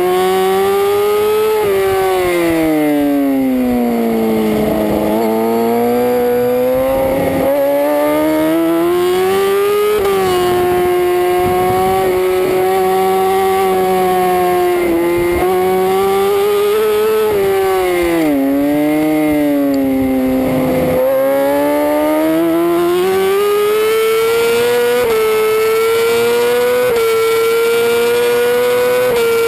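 A racing superbike's engine heard onboard at track speed. The engine note falls as the bike slows for a corner a few seconds in, climbs back and holds steady, dips again around twenty seconds in, then rises in steps near the end.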